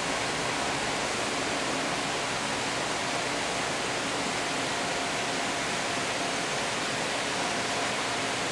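A steady, even hiss that stays the same throughout, with a couple of faint steady tones beneath it.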